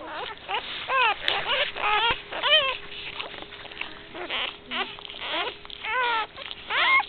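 Newborn American bulldog–boxer cross puppies crying: a string of short, high-pitched cries, each rising and then falling in pitch, about five of them with a lull in the middle.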